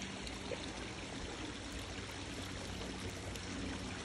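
Water pouring steadily over a spa's spillway into the pool, flowing well.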